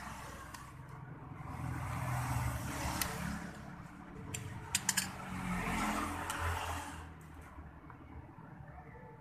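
Utility knife blade scraping and cutting into a plastic syringe barrel, with a few sharp clicks about halfway through. Under it, the low rumble of passing motor vehicles swells and fades twice.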